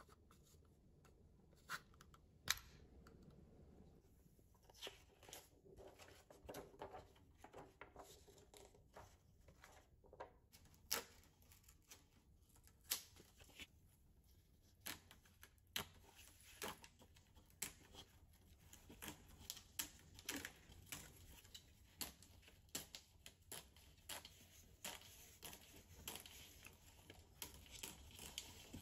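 Faint hand-handling sounds: sharp clicks of plastic projector-kit parts, then a paper film sheet rustling and scraping under the fingers, with many small ticks that grow busier in the second half.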